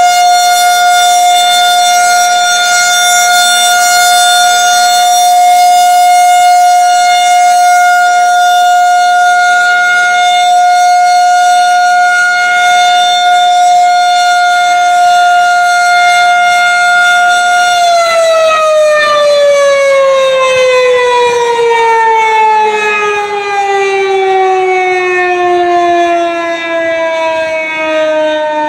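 Federal Signal Model 2001 rotating outdoor warning siren sounding its steady alert tone. About two-thirds of the way through it begins winding down, its pitch sliding steadily lower as the rotor slows.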